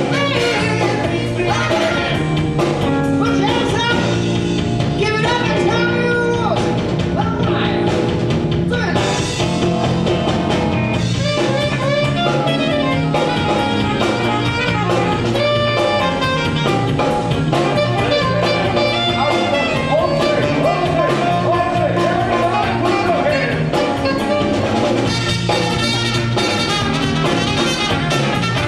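A live band playing, with a singer over the band and a steady beat.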